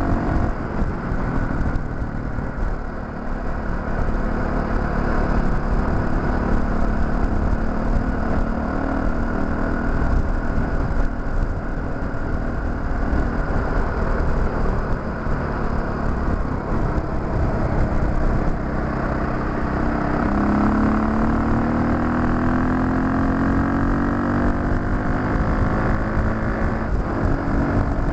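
Dirt bike engine pulling at road speed: the engine note climbs steadily and drops sharply at a gear change near the start and again about twenty seconds in. Heavy wind rush on the helmet-mounted microphone runs under it.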